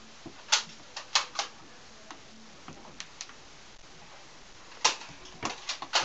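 Nerf foam-dart blasters being fired: sharp plastic snaps and clacks, three about half a second to a second and a half in, two fainter ones around three seconds, and a quick run of them near the end.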